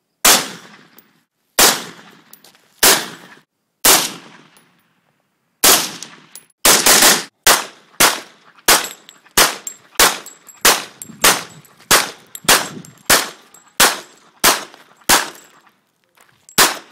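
Gunshots: four single shots from an AR-style semi-automatic rifle about a second apart, then after a short pause a steady string of semi-automatic handgun shots, roughly one every 0.6 seconds.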